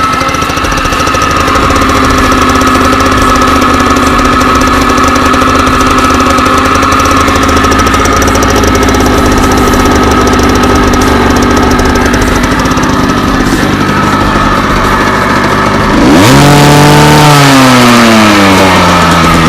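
Rieju motorcycle engine idling steadily. About sixteen seconds in it is blipped louder, and the pitch then slides back down over a few seconds as it settles to idle.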